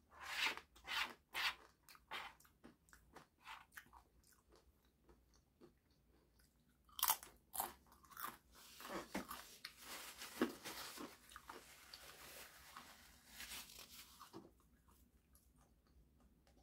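A crisp chip being bitten and chewed with loud crunches: a few sharp bites at the start, more about seven seconds in, then a long run of dense crunching that stops shortly before the end.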